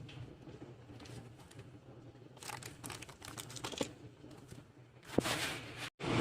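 Faint handling noise of a small plastic minifigure and its packaging: light scattered clicks and rustling, with one sharper click about five seconds in.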